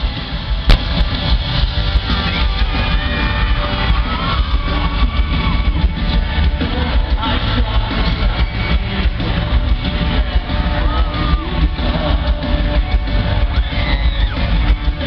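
Live rock band playing loud, with electric guitars, drums and singing, recorded from within the arena audience.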